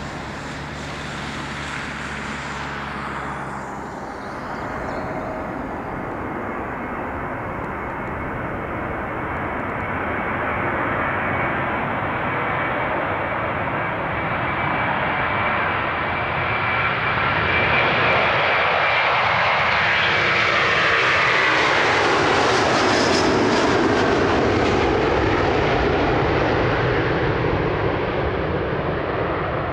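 Airbus A330 airliner's twin jet engines at takeoff power through the takeoff roll and climb-out. The sound grows steadily louder, with a sweeping tone that falls in pitch as the aircraft passes closest about three quarters through, then eases a little as it climbs away.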